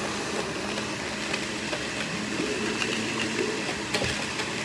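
Countertop blender running steadily, blending a protein shake with ice cubes, with a short knock about four seconds in.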